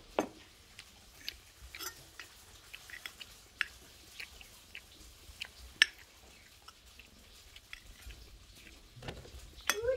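Scattered light clicks and taps of a metal spoon on a glass plate, with soft chewing, as rice is scooped and eaten. A cat starts meowing just before the end.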